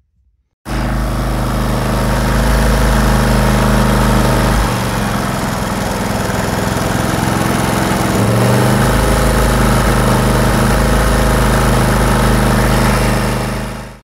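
Generac GP3300i inverter generator's small single-cylinder engine running steadily, after its throttle-body stepper motor was replaced to cure a no-start. The engine note drops about five seconds in and picks back up about four seconds later.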